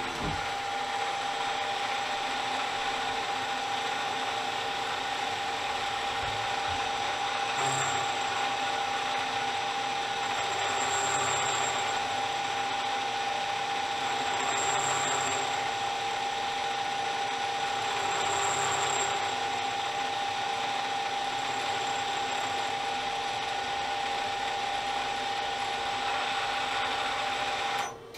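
CNC lathe live milling tool cutting a square on a small steel spacer under a heavy coolant flood: a steady machine whine over the hiss of coolant spray, swelling in regular cycles about every four seconds as the tool works around the part.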